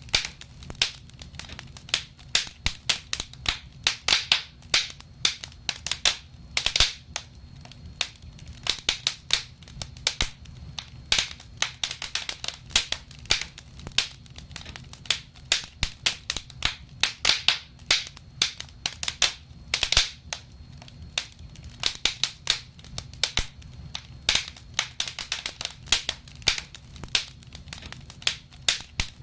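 Wood fire crackling in a fireplace: irregular sharp pops and snaps, several a second, over a low steady rumble of the flames.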